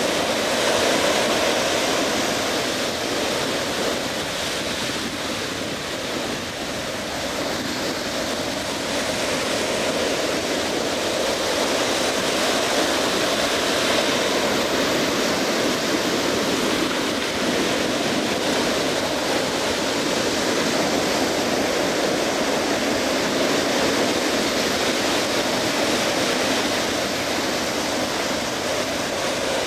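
Ocean surf breaking and washing onto a sand beach: a continuous rushing wash with slow rises and falls in loudness.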